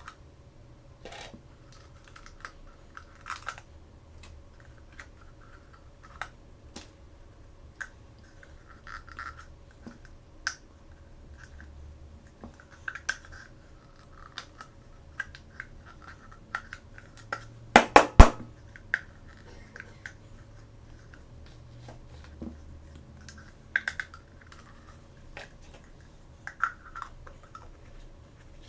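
Small plastic toys and packaging being handled and opened: scattered light clicks, taps and crinkly rustles. About halfway through comes a quick run of louder, sharp plastic clicks.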